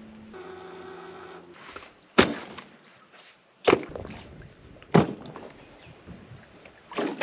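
Gear being unloaded from a small boat onto shore rocks: sharp knocks and clunks, about one every second or so. A brief steady hum comes just before them.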